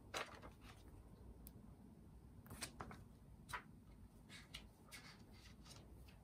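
Faint paper rustling with a handful of soft, scattered ticks as the pages of a Blu-ray's booklet are handled and turned, the loudest right at the start.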